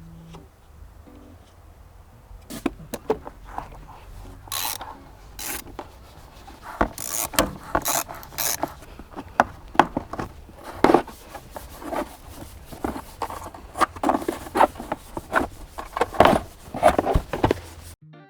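Irregular scraping, rubbing and clicking from hand work on a car's body panels, picking up and getting busier a few seconds in.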